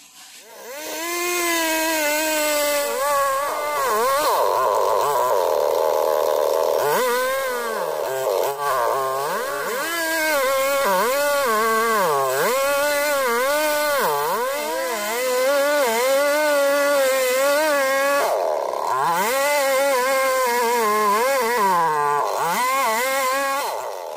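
Gasoline chainsaw running at high revs while cutting through a thick tree trunk, its engine pitch dipping and rising over and over as the chain loads and frees in the wood. It comes in about a second in and briefly drops off about two-thirds through before revving back up.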